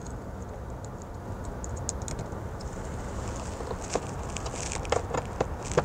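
Small plastic clicks and taps as fingers fit an LED bulb into its socket and press the glove box light housing back into the hard plastic trim, scattered and more frequent in the second half.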